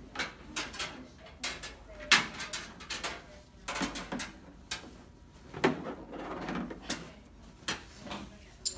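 Irregular knocks and clatters of a wire bed cradle being set over a hospital bed and moved into place, its frame bumping the bed, with some rustling of bedding; the sharpest knock comes about two seconds in.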